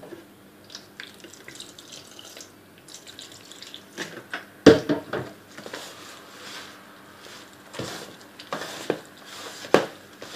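A spoon mixing flour and water into chapati dough in a bowl: scattered irregular taps and clicks, with a louder knock about halfway through.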